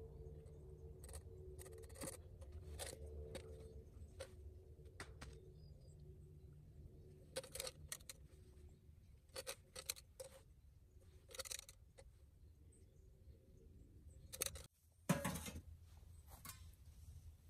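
Soft scrapes and light clicks of a spatula scraping batter out of a stainless steel pot, scattered through the first dozen seconds. About fifteen seconds in comes one louder knock of metal as the lid of an aluminum camping oven is handled.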